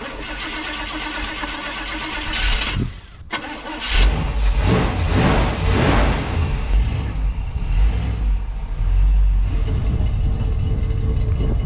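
Old station wagon's engine cranking on the starter for a few seconds, then catching about four seconds in and running loud, revved up and down a few times before holding steady.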